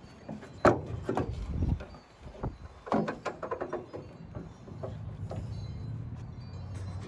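Clicks and knocks of hand tools and parts being handled at the truck's tail light, the loudest knock just under a second in and a quick run of clicks about three seconds in. A steady low hum sets in near the end.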